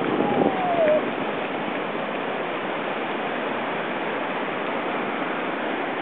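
Ocean surf washing up a sandy beach: a steady rush of breaking waves and running water, with a brief falling squeal about half a second in.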